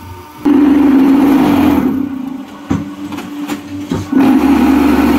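Concrete block making machine's vibrators running under the mould: a loud buzzing rattle that starts suddenly about half a second in, drops back twice in the middle and comes back strong near the end.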